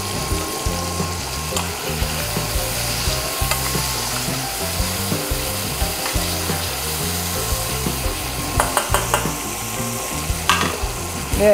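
Chicken pieces and minced garlic in olive oil sizzling steadily in a stainless steel saucepan as they are stirred and tossed with a wooden spatula. A quick cluster of light clicks comes about nine seconds in.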